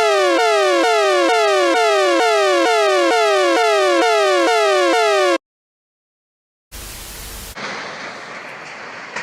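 Electronic emergency-alert alarm tone: a rapid series of falling pitch sweeps, nearly three a second, that cuts off abruptly about five seconds in. After a brief silence comes a short burst of static, then a steady rushing noise.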